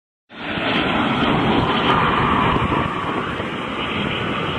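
Loud, steady jet noise from a formation of four L-39 Albatros jet trainers passing low overhead. It cuts in suddenly and eases a little after about three seconds.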